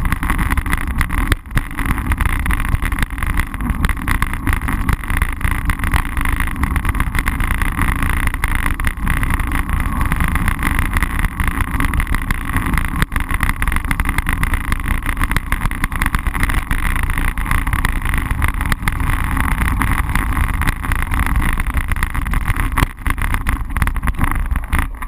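Steady rush of wind buffeting a bike-mounted GoPro Hero's microphone, mixed with road rumble from a road bicycle rolling over asphalt.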